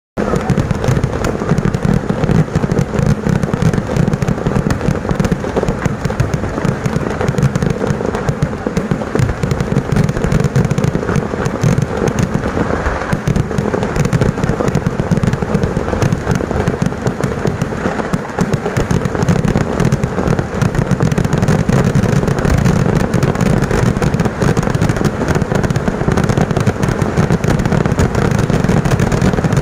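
Kerala vedikettu fireworks: a dense, continuous barrage of explosions in very rapid succession, merging into a steady rattling rumble with no pauses.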